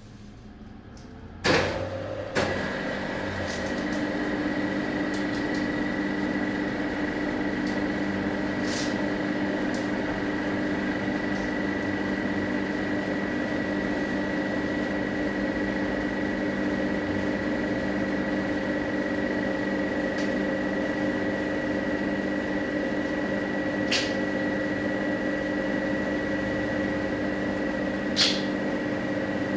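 A machine is switched on with a click and then runs with a steady, even hum made of several fixed tones, with an occasional faint click over it.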